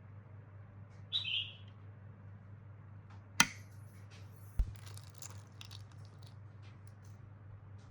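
A short high squeak or chirp about a second in, then a sharp click, a dull knock about a second later and a few faint light taps, over a low steady hum.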